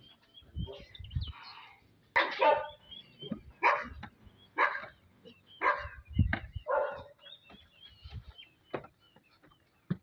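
A dog barking repeatedly, a short bark about once a second for several seconds, with faint bird chirps and a few dull footfalls on wooden stairs.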